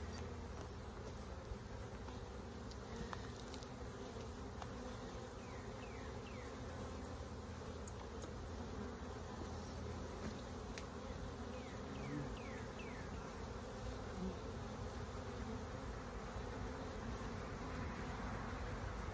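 Steady hum of a honeybee colony at an opened hive. A few faint, short high chirps sound over it.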